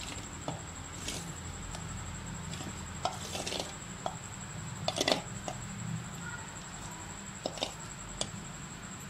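Hand mixing and kneading flour into ghee and sugar in a steel plate: soft rubbing and squishing of the dough, with scattered short clicks and taps against the metal, the loudest pair about five seconds in.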